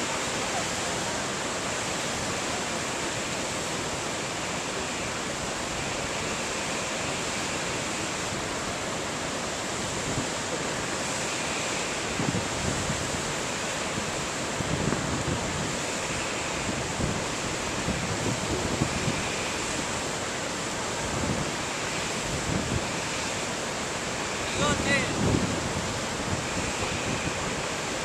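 Steady rush of whitewater pouring over a low rock ledge. From about twelve seconds in, wind buffets the microphone in gusts.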